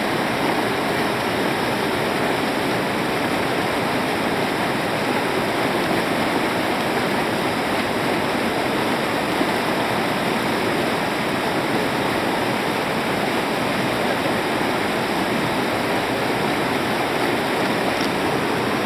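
River water rushing over and between boulders in shallow rapids, a steady unbroken rushing.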